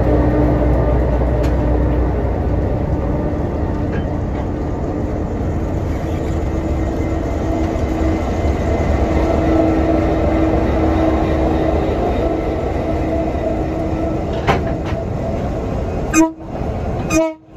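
Diesel locomotives running light, passing slowly close by: a steady diesel engine drone over a low rumble, with a held mechanical hum that grows stronger in the middle. Near the end the sound breaks off abruptly twice.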